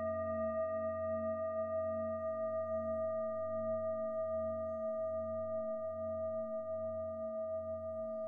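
A singing bowl ringing with a long, steady tone after a strike just before, several pitches sounding together with a slow pulsing wobble as the ring slowly fades.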